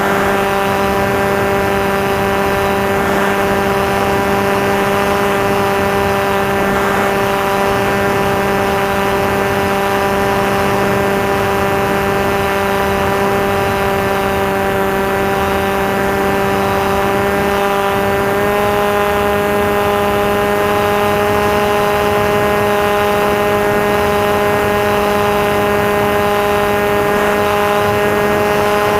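Electric motor and propeller of a Maxi Swift flying-wing model plane running at steady throttle, a constant buzzing drone whose pitch steps up slightly about two-thirds of the way through.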